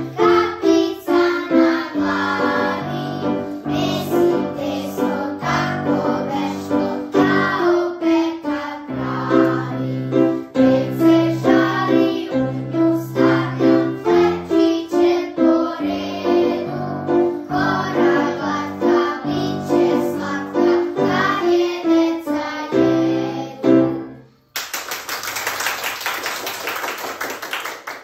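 Children's choir singing a song to grand piano accompaniment. The music stops about three-quarters of the way through, and a few seconds of even hiss-like noise follow.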